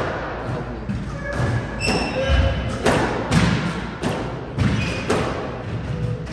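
Squash rally: the ball smacks off racquets and thuds against the court walls, several sharp hits about a second apart, with short squeaks of sneakers on the wooden floor.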